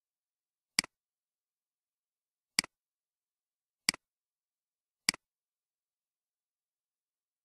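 Four computer mouse clicks, each a sharp press followed at once by a softer release, spaced about one to two seconds apart with dead silence between.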